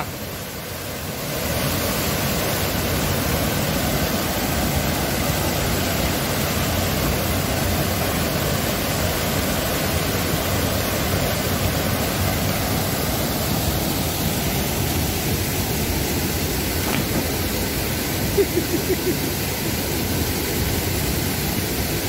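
Benang Kelambu waterfall rushing steadily, a wide sheet of water pouring over a stone ledge and crashing into the pool below.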